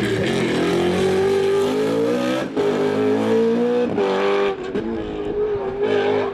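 BMW Z4 GT3's naturally aspirated 4.4-litre V8 racing engine under hard acceleration, its note climbing and then dropping with a gear change about two and a half seconds in and again about four seconds in. It runs a little lower and choppier near the end.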